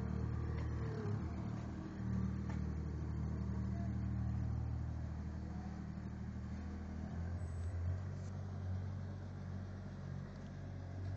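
Avant 630 compact loader's engine running steadily as the machine works, its note shifting lower about two-thirds of the way through.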